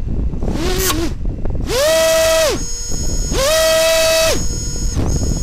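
Brushless motors of an Emax 250 FPV quadcopter lying crashed and upside down, throttled in short blips. After a brief low whir, they twice rise to a steady high whine, hold about a second, and spin back down.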